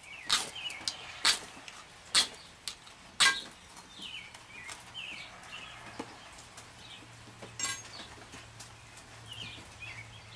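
A knife's spine scraped down a ferrocerium rod in about five quick strikes over the first three seconds or so, throwing sparks to light a tinder bundle; small birds chirp throughout.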